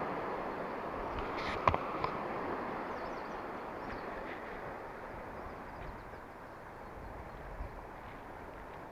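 Steady outdoor noise of wind and water around a small fishing boat, with two sharp knocks, like tackle or a rod striking the boat, about two seconds in.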